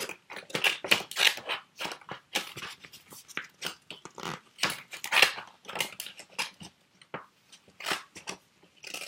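Scissors cutting paper: a run of short, irregular snips, a few a second.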